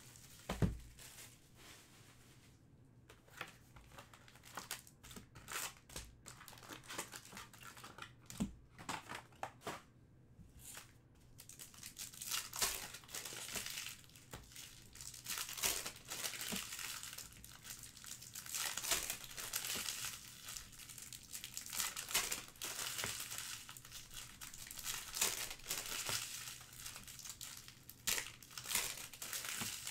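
Foil trading-card pack wrappers crinkling and tearing as packs are opened by hand. Scattered light clicks and a soft thump come first, and the crinkling turns dense and continuous about twelve seconds in.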